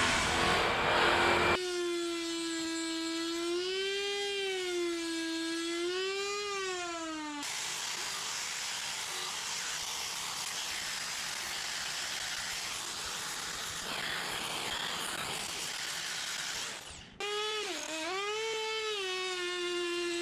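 A small high-speed rotary power tool whining, its pitch rising and falling as it bites into the wood, after a louder, rougher motor noise stops about a second and a half in. From about seven seconds a steady hissing grind takes over for about ten seconds, and then the whine comes back.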